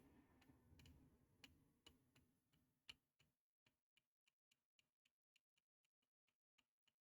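Very faint, quick ticks, about three a second, of metal tweezers tapping along a chip's soldered pins to check for lifted pins. A faint low hum dies away about three seconds in.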